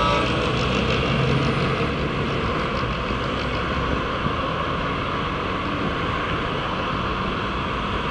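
Road traffic at a city junction: an articulated city bus drives past close by at the start and fades a little, then steady noise of passing cars and engines.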